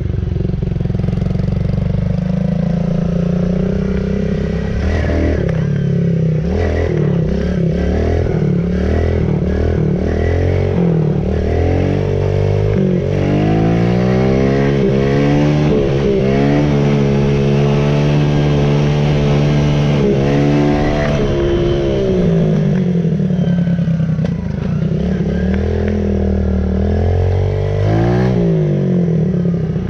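Pit bike engine running while being ridden, its pitch climbing and dropping back again and again as it revs up and eases off, holding a steady high pitch for several seconds through the middle before falling away.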